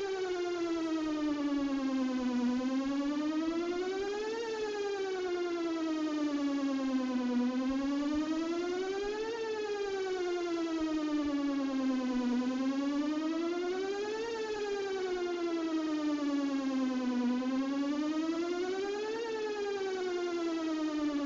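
Whelen electronic outdoor warning siren sounding its "best possible protection" tone during an all-tone test. It is a wail that glides slowly up and down in pitch, about one full rise and fall every five seconds.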